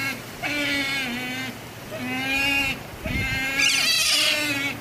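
Asian small-clawed otters calling: a run of drawn-out, bleat-like whining calls in quick succession, the last and longest one the loudest. These are the excited calls of otters waiting for food just before feeding time.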